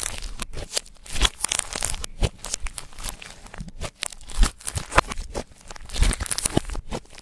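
Clear slime being mixed and squished by hand, with dense, irregular sticky clicks and crackling pops.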